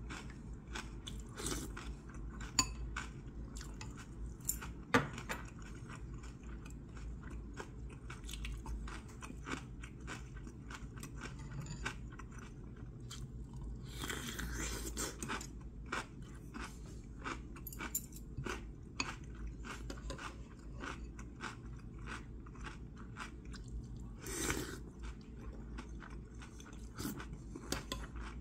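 A person chewing and crunching food close to the microphone, with sharp clicks of steel chopsticks and a spoon against a porcelain bowl, the two loudest within the first few seconds.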